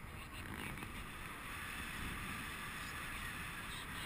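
Steady rush of airflow buffeting the microphone of a camera mounted on a paraglider in flight.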